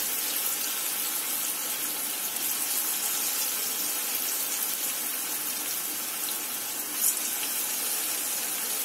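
Cabbage-and-carrot Veg Manchurian balls deep-frying in a wok of hot oil: a steady, even sizzle of bubbling oil, with one small click about seven seconds in.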